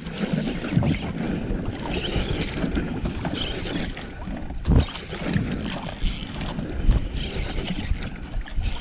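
Wind buffeting the microphone over water lapping against a small outrigger fishing canoe, with a couple of sharp knocks about five and seven seconds in.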